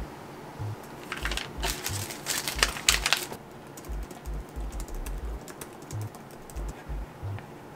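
Typing on an Apple Magic Keyboard for iPad Pro: soft, scattered key clicks through the second half. Before that, from about a second in, some two seconds of crackling rustle as packaging is handled, all over quiet background music with a soft low beat.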